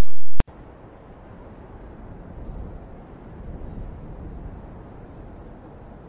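Background music cuts off about half a second in, giving way to insects trilling steadily at a high pitch over a low background hiss.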